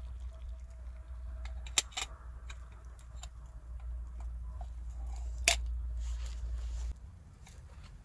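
Metal clinks of a camp kettle and its lid on a grate over a wood fire: two sharp clinks about two seconds in and another near five and a half seconds, over small crackles of the burning fire and a steady low rumble that cuts off near the end.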